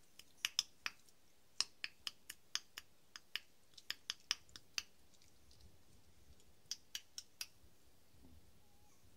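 Sharp, high clicks made by hand to catch puppies' attention: a quick irregular run for about five seconds, then a pause and four more.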